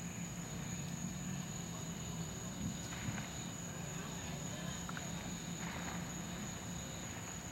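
Steady summer-evening outdoor ambience: a constant high insect drone over a low hum, with faint short hisses from a lit firework fuse burning about three seconds and again nearly six seconds in.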